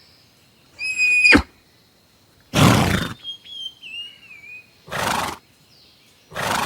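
Horse sounds: a short, high whinny about a second in, then several loud, breathy snorts spaced over the following seconds.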